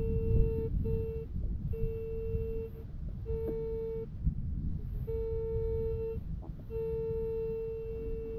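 Metal detector sounding a steady single-pitched beep that cuts in and out as the search coil is swept over grass. There are about six tones, each lasting from half a second to a second and a half, over a low rumbling noise.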